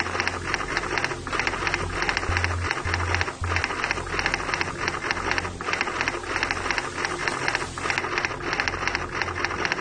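Background music with a fast, rhythmic high-pitched pulsing in short phrases with brief breaks.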